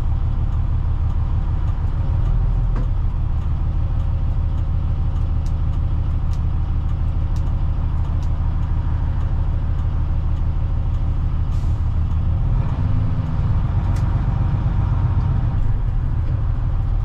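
Bedford YMQ coach's diesel engine running steadily under way, heard inside the coach. About eleven and a half seconds in there is a brief hiss, and just after it the engine note changes.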